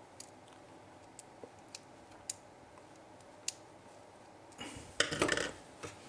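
Faint, scattered small clicks of a screwdriver working the screw of a plastic screw terminal block, then a louder second-long stretch of handling noise about five seconds in.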